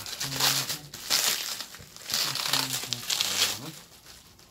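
Plastic bubble wrap crinkling and rustling as it is handled, in about four bursts.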